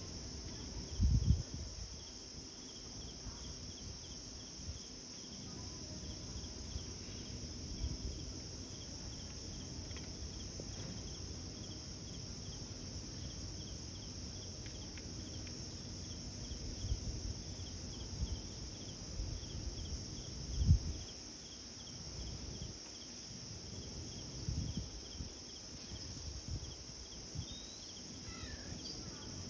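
Outdoor insect chorus: a steady high buzz with a regular chirp repeating a few times a second. Low thuds come now and then, the loudest about 20 seconds in.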